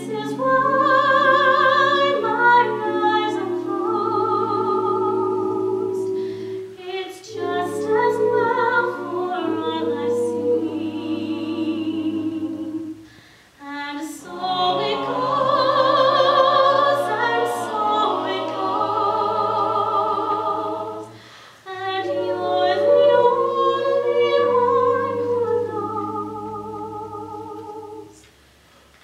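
A small mixed-voice a cappella ensemble singing a slow song in close harmony: held chords sung in long phrases, with short breaks for breath between them, and the last phrase dying away near the end.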